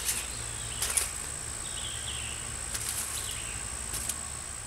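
Insects droning on one steady high pitch, with a few short, sharp clicks, about four, as a stick is poked into a smouldering pile of dry twigs.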